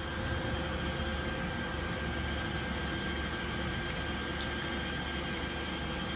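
Steady low hum and hiss of running machinery, with faint high steady tones, and a single sharp click about four and a half seconds in.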